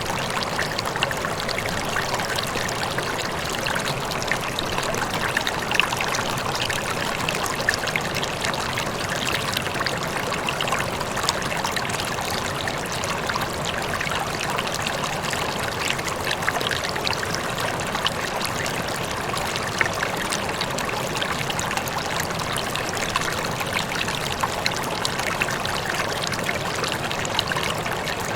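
Rippling water flowing steadily, with many small, sharp splashes all through.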